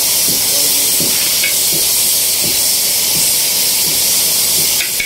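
A large pot of mutton korma cooking over a high flame: a loud, steady hiss with soft, irregular low plops from the thick masala bubbling.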